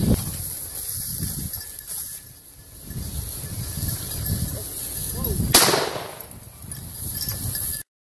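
Wind buffeting the microphone while walking through tall dry grass, then a single shotgun shot about five and a half seconds in. The sound cuts off abruptly just before the end.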